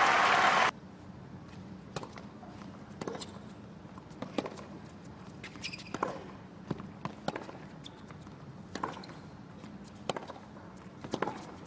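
Crowd applause cuts off abruptly under a second in. It gives way to a tennis rally on a hard court: a string of sharp knocks from racket strikes and ball bounces, one every half second to second and a half.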